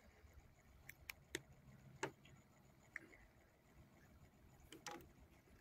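Near silence broken by a handful of faint, scattered clicks and ticks.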